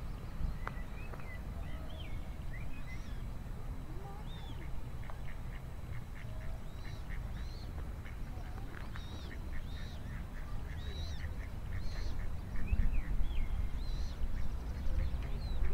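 Ducks on a pond quacking, mixed with short rising and falling songbird calls, over a steady low rumble.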